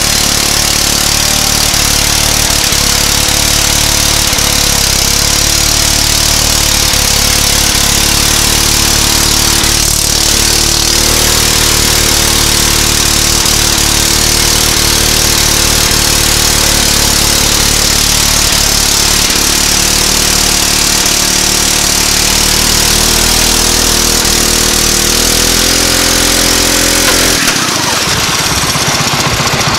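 Go-kart's small pull-start engine held at high revs in a burnout, the rear tire spinning on pavement with a steady hiss of scrubbing rubber; the tire is being worn through. The low engine note cuts out near the end.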